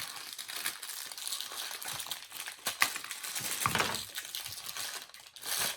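Plastic packaging crinkling and rustling as it is torn open and handled, with scattered small clicks and a soft thump about three and a half seconds in.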